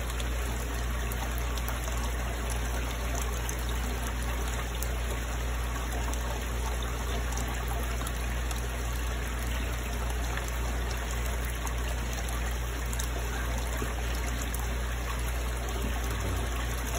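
Steady trickle of running water in a koi fry tank, over a continuous low hum.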